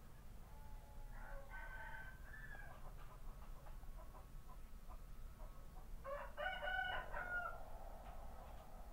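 A rooster crowing twice, each crow about a second and a half long and about five seconds apart; the second is louder. A low steady hum runs underneath.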